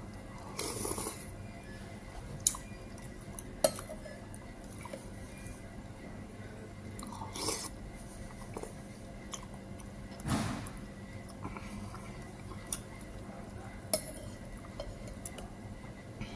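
Close-up eating sounds: a spoon clicking against a plate now and then, with chewing and some crunching between the clicks.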